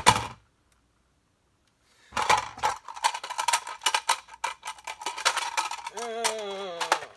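Plastic clicking and rattling from a Nerf Longstrike blaster being handled and its magazine pulled out, with one sharp click at the very start and a dense run of clicks after a short silence. Near the end there is a brief falling, wavering hum from a voice.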